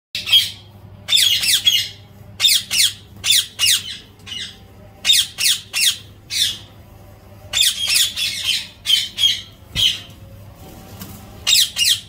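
Indian ringneck parakeets squawking: harsh, high screeches in quick runs of two to four calls, with short pauses between the runs.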